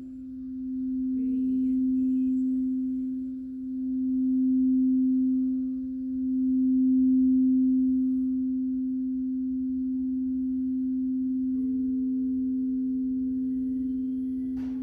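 Singing bowl sounding a low, steady tone that swells and fades in slow waves. A second, higher bowl tone joins about two-thirds of the way in, and a fresh strike rings out just before the end.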